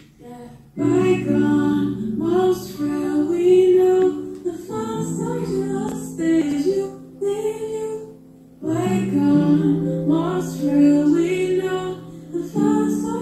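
Intro music with a woman singing in phrases that start about every four seconds over held backing notes.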